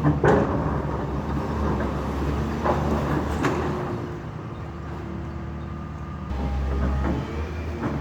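Heavy demolition machinery running with a steady low diesel drone, with scattered clanks and knocks. The low drone eases for about two seconds past the middle, then comes back.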